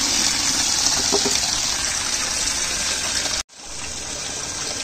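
Tap water gushing from a faucet into a half-full plastic bucket, a steady splashing rush as the bucket fills. It breaks off suddenly about three and a half seconds in, and a softer steady rushing follows.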